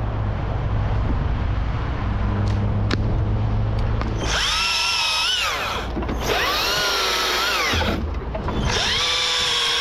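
Husqvarna T542i XP battery chainsaw cutting wood in bursts from about four seconds in, its electric motor whine dipping and rising in pitch as it loads in the cut, without stalling, with two short pauses. Before that, a low steady hum.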